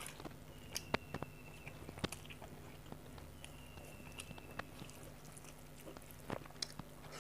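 Close-miked eating sounds of a person chewing rice, fish fry and papad eaten by hand, with scattered sharp clicks and light crunches of food and fingers.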